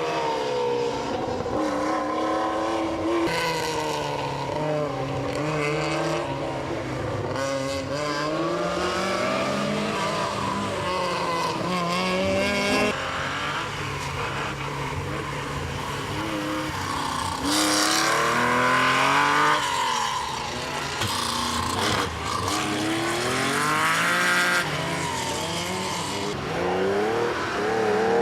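Classic rally cars' engines revving hard. Each pitch climbs and drops back at every gear change, over and over, with several cars heard at once and louder spells with tyre noise as cars pass close.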